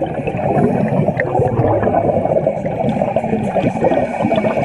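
Dense rush of air bubbles churning and rising underwater, heard from below the surface: the air burst of an underwater model rocket launch.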